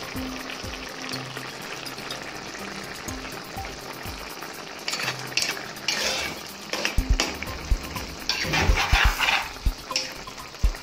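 Steel spoon stirring a simmering mix of anchovies, grated coconut and tamarind water in a pot over a steady sizzle, scraping the pot about halfway through and again near the end, with a few light knocks against it.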